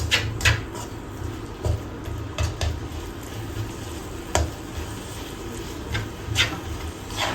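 Spoon stirring and scraping a spiced onion-tomato masala in a cooking pot, with a low steady sizzle underneath. About nine short sharp scrapes and taps come at irregular moments.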